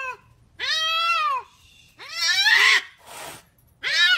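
A cat meowing over and over in long, drawn-out meows that rise and fall in pitch. The meow about two seconds in is rougher and raspier, with a short breathy sound after it.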